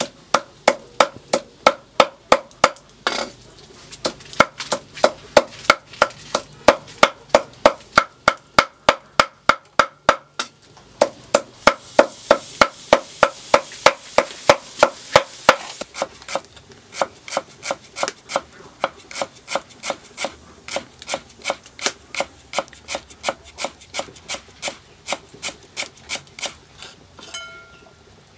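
Meat cleaver mincing boiled cow offal on a round wooden chopping board: a steady run of sharp knocks, about three a second.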